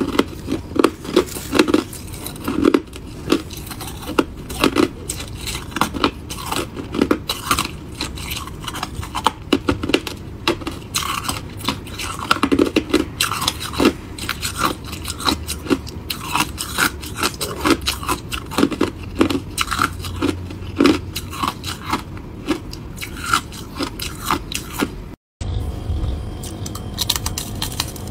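A person biting and chewing crushed ice close to the microphone, making rapid, irregular crunches and crackles. It breaks off for a moment near the end, then the crunching resumes.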